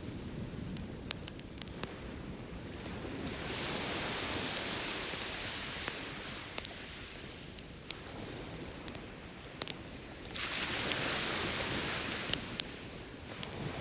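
Ocean waves washing onto a beach in two swelling rushes, with a campfire crackling: scattered sharp pops from the burning logs.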